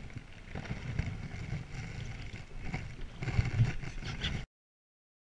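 Sound from a canoe on the water: an irregular low rumble with a few knocks and splashes. It cuts off abruptly about four and a half seconds in.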